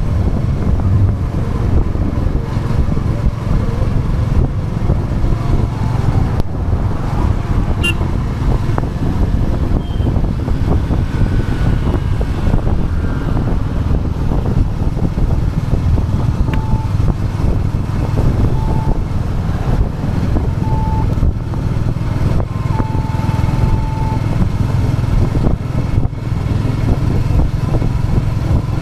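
Royal Enfield Classic 350's single-cylinder engine running steadily as the motorcycle cruises along the road. Around the middle, a few short beeps sound about two seconds apart.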